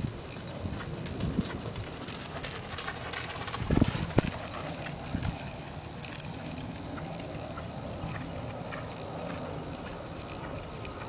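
A horse's hoofbeats on dirt arena footing, loudest a little under four seconds in as the horse passes close, then growing fainter as it moves away.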